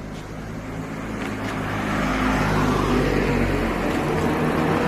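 Street traffic approaching and passing: cars and a small truck, with an orange Iyotetsu streetcar coming up along the tracks behind them. The rumble grows louder over the first two seconds and then holds.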